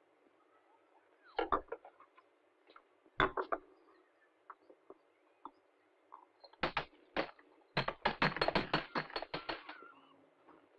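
Sharp knocks and clinks of ice being handled at a bathroom sink: a few scattered strikes, then a fast run of about a dozen near the end.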